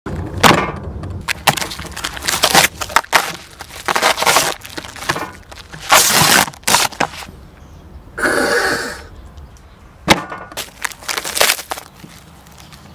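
Clear plastic film crackling and crinkling in irregular bursts as it is peeled off a plastic meat tray.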